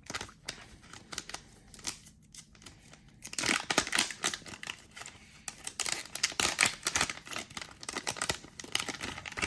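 A trading card pack being opened and handled by hand: crinkling and tearing of the wrapper with many small clicks and rustles, busiest in the second half.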